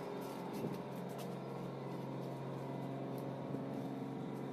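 Steady low drone of a ship's machinery, one constant hum with higher tones above it, over a hiss of wind and sea, with a few light clicks.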